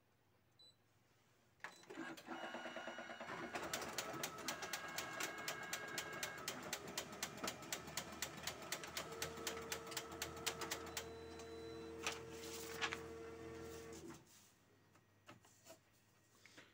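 Canon imageRUNNER 2204 photocopier making a copy after a faint key beep. Its motors start about a second and a half in, with rapid, even clicking; a steady hum joins about halfway through, and the machine stops about two seconds before the end.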